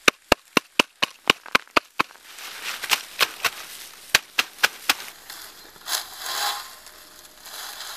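A wooden beater knocking the butt ends of a bundle of cut reeds held in a metal jig to even them up: sharp wooden knocks about four a second, slowing and turning irregular after about two seconds. Dry reeds rustle twice near the end as a bundle is shaken out.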